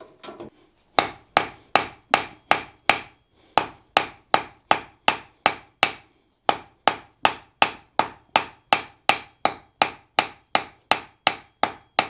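Blacksmith's hand hammer striking a small red-hot iron bar held in tongs on the anvil face: a steady run of blows about three a second, each with a bright short ring, pausing briefly twice. The quick, light blows are drawing the hot bar down into a rat-tail handle.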